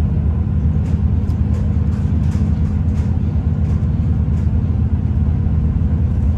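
Cabin noise inside a V/Line diesel passenger train running at speed, about 100 km/h: a steady low rumble from the engine and wheels on the rails, with faint scattered ticks.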